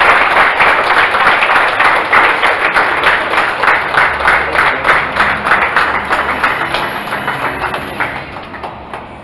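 A crowd applauding, many hands clapping at once, steady at first and then fading away over the last couple of seconds.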